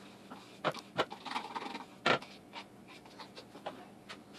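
A spoon scraping and tapping ricotta cheese out of a plastic tub into a mixing bowl: a handful of short sharp knocks, the loudest about two seconds in, with some scraping.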